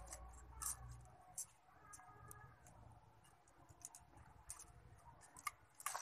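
Faint, scattered light clicks and taps of thin split bamboo sticks being handled and fitted together by hand.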